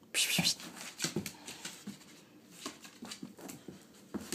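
A dog's breath and mouth noises: a short, sharp puff of breath near the start, then scattered small clicks and brief sounds, the dog being worked on for teeth brushing.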